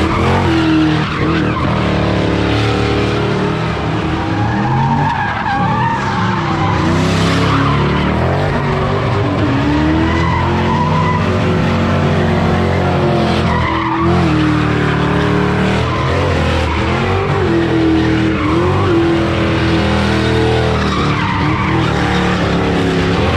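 A car's engine held at high revs, its pitch rising and falling, while the tyres squeal and skid continuously as the car slides in circles at a sideshow.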